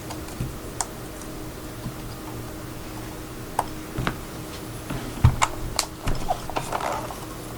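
Scattered light metal clicks and taps of an Allen wrench turning two set screws into a muzzle shroud on a rifle barrel, a few early on and more often in the second half.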